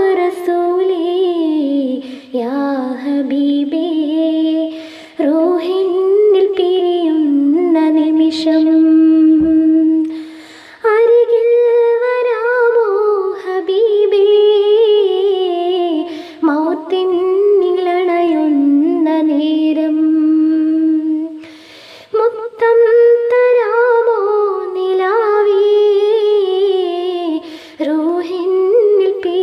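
A woman's solo voice singing the melody of a Malayalam madh song, unaccompanied, in long held and ornamented phrases with short breaths between them, about ten seconds in and again a little past twenty seconds.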